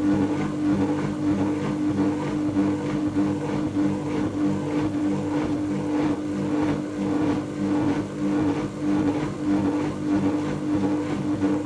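Dyson Contrarotator CR01 washing machine running with its drum motor turning at a steady speed, giving a constant whine over a faint regular pulsing.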